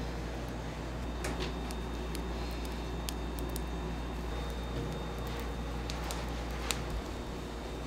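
Bakery work sounds: scattered light clicks and taps, about six over several seconds, over a steady low machine hum.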